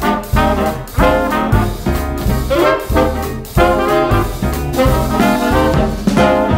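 Upbeat swing-style background music with brass horns and a steady beat.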